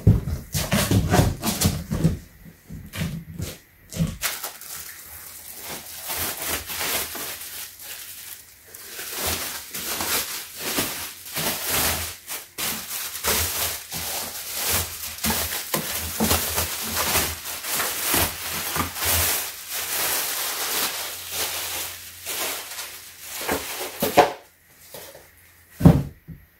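Thin plastic bag crinkling and rustling continuously as it is pulled off a large loudspeaker, after a few seconds of cardboard packaging being handled with dull knocks. A single sharp knock comes near the end.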